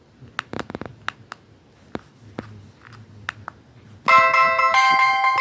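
Scattered faint clicks, then about four seconds in a BlackBerry Curve 8520 ringtone starts playing from the phone's speaker: a chiming melody of clear notes, much louder than the clicks.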